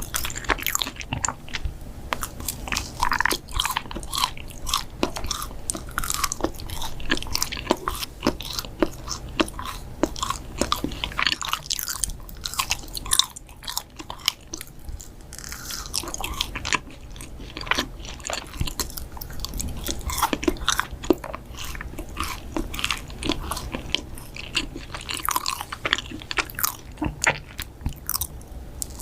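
Close-miked biting and chewing of yakgwa, Korean honey-soaked fried cookies: many sharp crunching clicks, several a second, all the way through.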